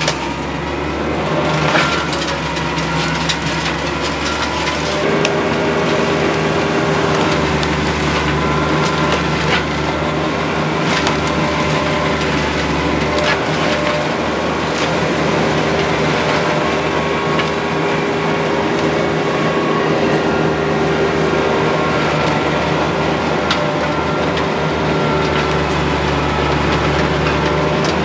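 Baumalight MP348 PTO forestry mulcher on a TYM T25 compact diesel tractor, running steadily with a continuous drone while the rotor shreds brush and leaf litter, punctuated by scattered sharp cracks and snaps as branches are chewed up.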